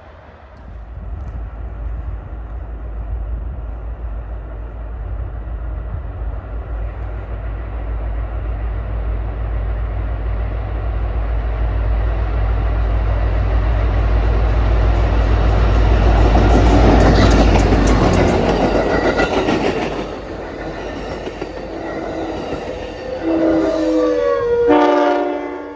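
A train's locomotive rumbles louder as it approaches and passes, with the wheels clattering over the rails. Near the end a multi-tone train horn sounds in two blasts.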